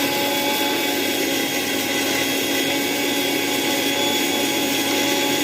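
Sujata mixer grinder running at full speed, a steady high motor whine over a whirring rush, wet-grinding a batch with water added to the jar.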